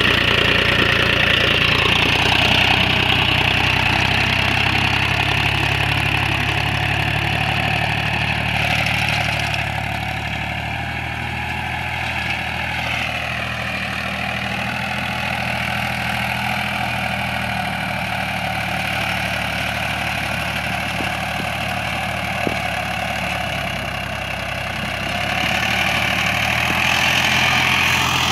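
Mahindra 265 DI tractor's three-cylinder diesel engine running steadily under load while pulling a cultivator through soil. It grows quieter as the tractor moves away, dips briefly in pitch midway, and grows louder again as it comes back near the end.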